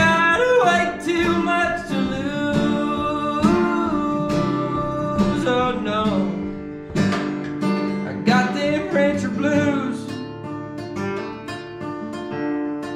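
A man singing a country song, accompanying himself on acoustic guitar. The voice stops about ten seconds in and the acoustic guitar plays on alone.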